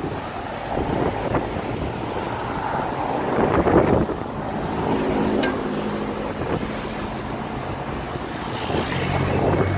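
Cars driving across a level crossing: road traffic with tyre and engine noise, one vehicle passing close about three to four seconds in, with wind buffeting the microphone. A higher pitched sound comes in near the end.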